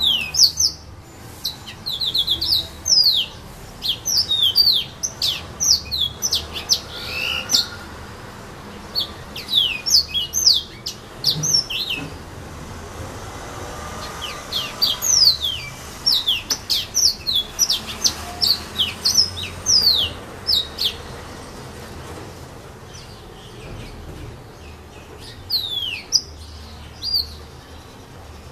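Yellow-fronted canary (the 'serin du pays' of Réunion) singing: phrases of rapid, high, downward-sliding notes, broken by short pauses.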